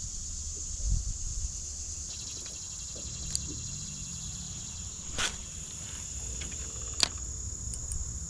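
Insects calling in a steady, unbroken high drone, over a low rumble, with a few sharp clicks or knocks, the two clearest about five and seven seconds in.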